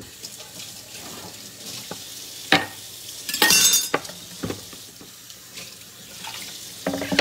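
Kitchen tap running steadily into a sink, with a few knocks and a short clatter of kitchenware a little past the middle.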